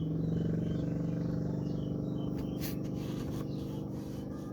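Steady low hum of an engine or motor running, with a few faint clicks about two and a half to three and a half seconds in.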